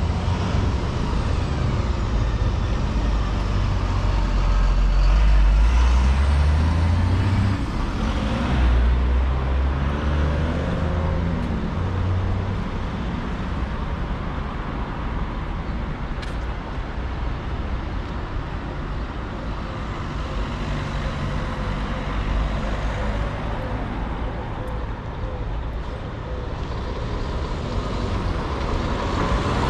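Road traffic at a city junction: a car and a bus drive past, their engines rising in pitch as they pull away during the first ten seconds or so, then lighter, steady traffic noise.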